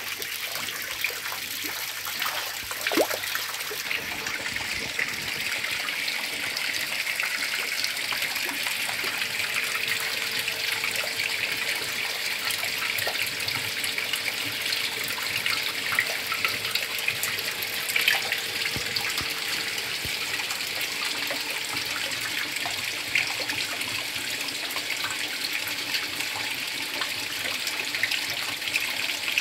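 Water running and splashing steadily into a koi pond.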